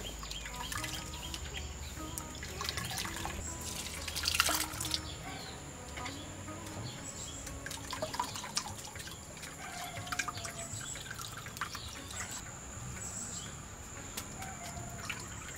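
Thick first-extract coconut milk pouring and dripping into a clay pot as grated coconut is squeezed by hand in a woven cane strainer, with a louder spell of pouring about four seconds in.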